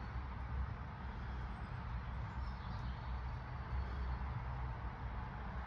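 Steady low rumble with a faint hiss: the background of a quiet church interior picked up by a handheld phone microphone, with no distinct events.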